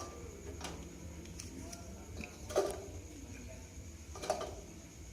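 Sliced turmeric, ginger and lemongrass being dropped into a cooking pot: a few light, separate knocks, the loudest a little past halfway and near the end.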